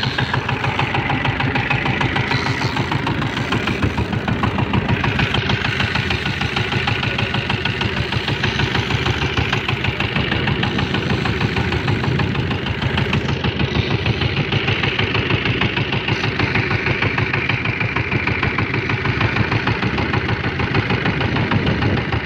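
Small inboard diesel engine of a wooden fishing boat running steadily with a fast, even chugging knock.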